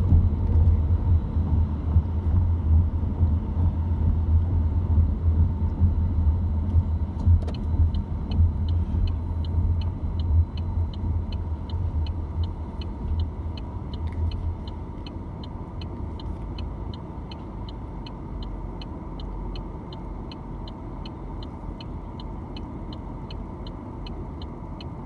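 Car cabin noise: a low engine and road rumble that fades about halfway through as the car slows and settles. From about a third of the way in, a high, light ticking repeats steadily two to three times a second.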